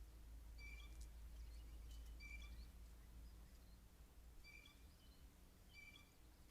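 Blue jay calling faintly: four short calls about a second and a half apart, each a level note that bends upward at the end.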